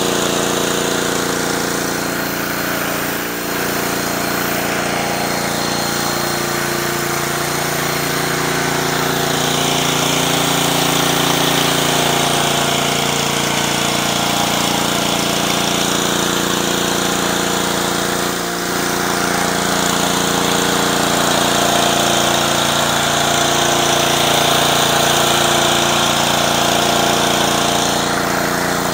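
Pressure washer's Honda GCV190 single-cylinder engine running steadily under load, with the hiss of high-pressure water from a spinning surface cleaner on concrete swelling and fading as the cleaner is pushed back and forth. The sound dips briefly twice.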